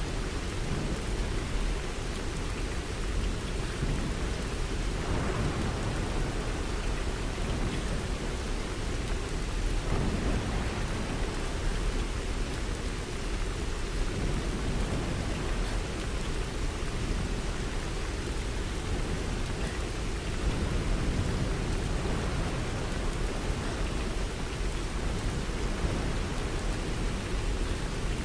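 Steady rain falling: an even, unbroken hiss with a heavy low rumble underneath.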